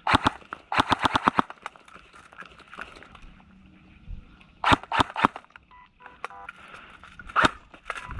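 Airsoft electric guns firing in quick strings of shots, with sharp snapping reports. There is a short burst at the start, a longer rapid string about a second in, another string around five seconds and a couple of shots near the end.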